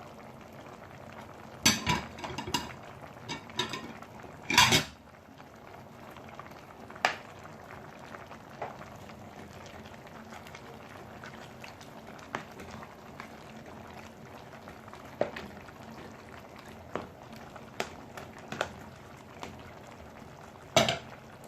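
Pot of plantain porridge simmering steadily, with a metal spoon or utensil clinking and knocking against the pot: a cluster of strikes about two seconds in, a loud one about five seconds in, lighter scattered taps, and another strike near the end.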